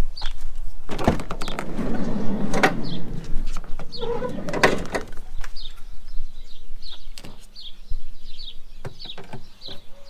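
A mosquito-net screen and its frame being handled and fitted into a van's sliding-door opening: a scraping, rattling stretch about a second in and several sharp knocks. A bird chirps over and over.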